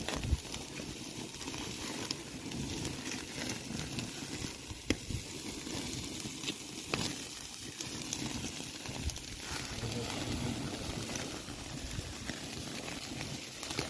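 Meat sizzling over a fire, a steady hiss with scattered sharp crackles.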